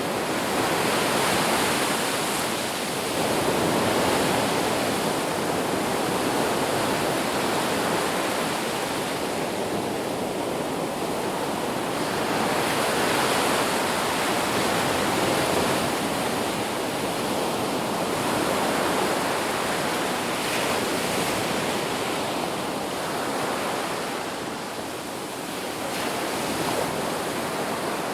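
Ocean surf: waves washing onto a beach in a steady rush that swells and eases every few seconds.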